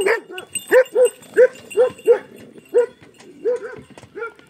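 A dog barking repeatedly, about ten short barks at roughly half-second intervals, thinning out toward the end.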